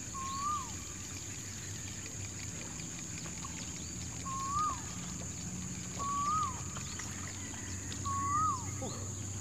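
A bird whistling the same short note four times, a second or two to four seconds apart; each note rises slightly and then drops away.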